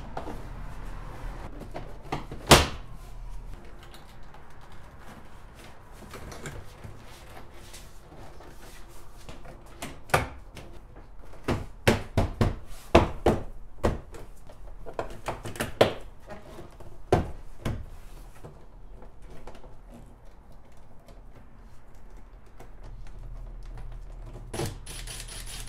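Plastic interior door trim panel of a 2003 VW GTI being pressed and knocked onto the door: a series of sharp thumps and clicks. The loudest comes about two and a half seconds in, a cluster follows between about ten and eighteen seconds, and one more comes near the end.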